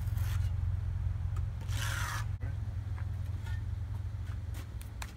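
Hollow concrete blocks scraping against each other as they are set onto a stack, once at the start and again about two seconds in, with a few light knocks near the end, over a steady low rumble.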